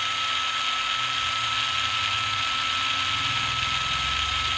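Makita 9.6 V cordless impact driver running free with no load, a steady high motor whine with one constant tone.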